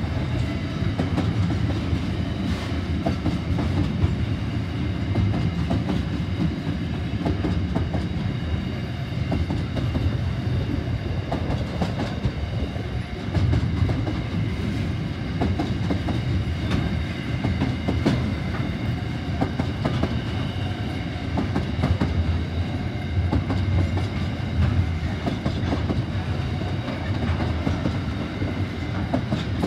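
Long container freight train rolling steadily past, its wagon wheels clattering over the rail joints in a continuous rumble, with faint steady high-pitched whines.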